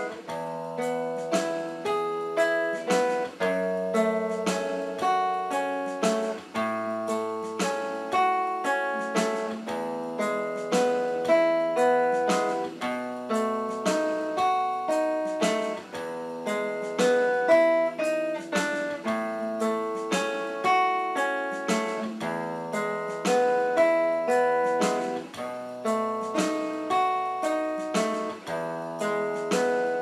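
Instrumental background music: plucked string notes in a steady, even run over held low bass notes.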